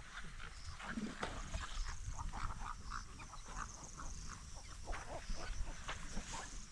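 A large flock of birds calling, with many short calls overlapping in a dense chatter. A steady low rumble runs underneath.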